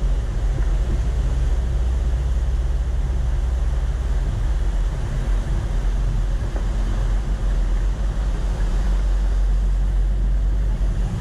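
Vehicle driving steadily along beach sand, picked up by a camera mounted outside on its hood: a continuous low rumble of engine, tyres and wind with no breaks.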